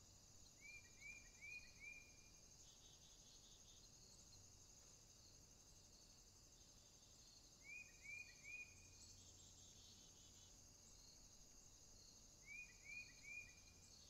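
Faint, steady high-pitched chorus of field insects. Three times a short run of three or four quick rising chirps stands out above it, about five seconds apart.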